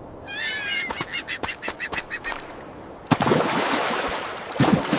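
A small bird calling: one warbling call, then a quick run of about six short, sharp, quack-like calls. About three seconds in, a louder rushing, splashing-like noise takes over.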